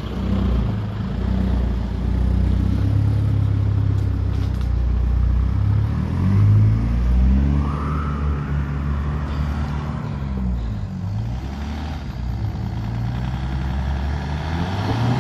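Four-wheel-drive vehicle's engine pulling at low speed on an off-road track. The revs climb about halfway through and then drop back.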